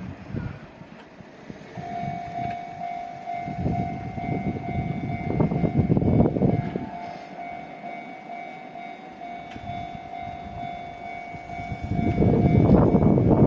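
Railway level-crossing warning bell sounding a steady, unbroken tone. Near the end a freight train arrives at the crossing, and the loud rumble of its passing takes over.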